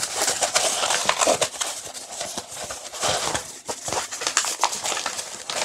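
Crackling and rustling of a tightly rolled diamond painting canvas and its paper covering being unrolled and handled, with many small irregular crinkles and ticks.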